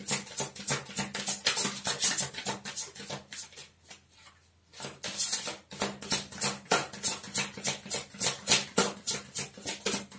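A deck of oracle cards being shuffled by hand: quick clacks about four or five a second, with a brief pause about four seconds in.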